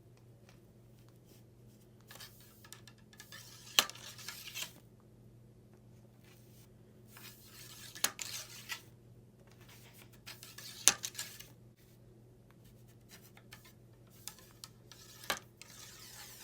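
Cleaning rod running a patch through the bore of a Springfield trapdoor rifle: stretches of scraping and rubbing, with about four sharp metal clinks spread through.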